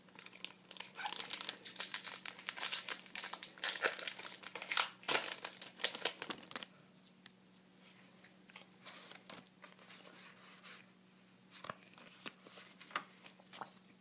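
Foil Pokémon booster pack being torn open and crinkled: a dense run of crackling for the first six seconds or so, then scattered softer rustles and clicks as the cards are handled.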